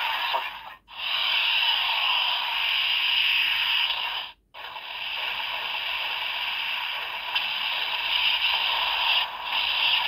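Blay Buckle toy transformation belt's small speaker playing a steady hissing, static-like electronic sound effect. The sound cuts out briefly about a second in and again near the middle.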